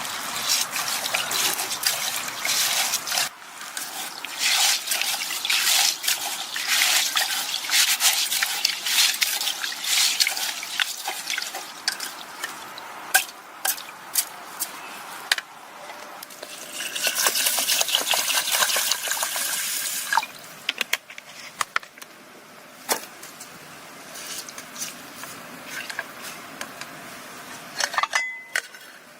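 Water splashing and trickling while things are handled, with many small clicks and knocks. About seventeen seconds in comes a steadier pour lasting a few seconds, like water filling a vessel. After that only scattered knocks are left.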